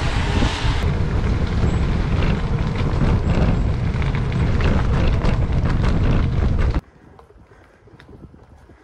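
Wind buffeting the microphone of a bicycle-mounted action camera while riding. It is loud and steady and cuts off abruptly about seven seconds in, leaving a much quieter background.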